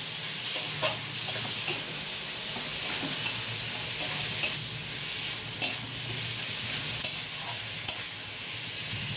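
Metal spatula scraping and clinking against an aluminium kadai as prawns and vegetables are stirred in a wet sauce, with a steady sizzle of frying underneath. The sharp scrapes come irregularly, about once a second.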